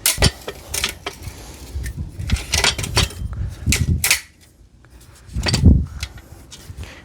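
Metal clicks, rattles and knocks of a folding steel mitre saw stand's legs being released and pulled out, with a heavier thump about five and a half seconds in.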